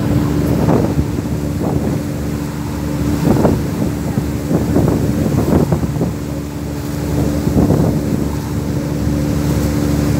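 Passenger ferry's engine running with a steady low hum under way, with wind buffeting the microphone in gusts.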